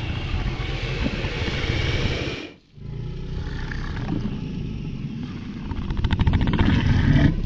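Made-up monster roar sound effect for a giant Krampus creature: two long, deep, rasping roars with a short break between. The second builds louder toward the end with a fast rattling pulse.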